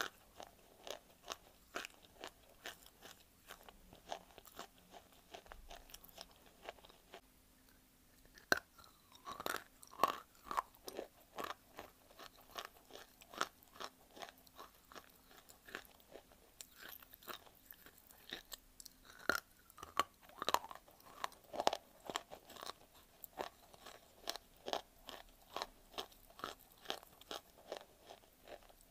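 Close-miked crunching and chewing of a dry chunk of white clay: a steady run of sharp, crackly crunches. Twice, after a short lull, a cluster of louder bites comes in.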